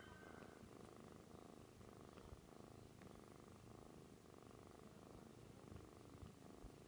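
Mother cat purring steadily and faintly while nursing her kittens.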